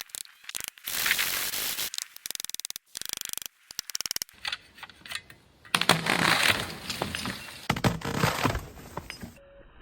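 Hand crosscut saw rasping through wood in strokes, followed about halfway through by a louder stretch of cracking and scraping with sharp snaps.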